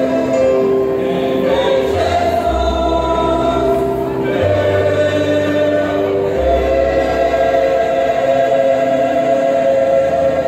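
Mixed choir of men's and women's voices singing a sacred song in sustained chords, with low bass notes that change every couple of seconds underneath.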